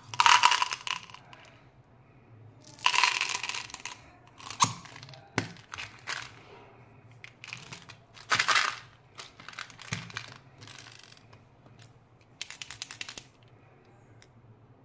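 Hard-shelled Skittles candies clattering against a small plastic Skittles tub in about seven separate rattling bursts, with lighter plastic clicks in between.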